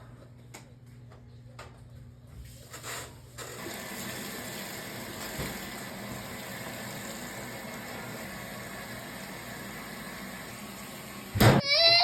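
Steady rushing of running water, starting a few seconds in after a few light clicks. Near the end it gives way to a sudden loud sound, and a baby starts to cry.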